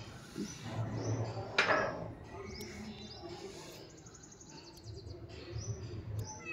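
Small birds chirping in the background: repeated short, high, falling chirps and a quick trill, with a brief burst of noise about a second and a half in.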